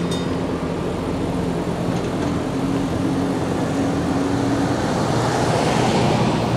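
Cars and pickup trucks driving across a railroad crossing: steady engine hum and tyre noise, growing louder near the end as a pickup passes close by.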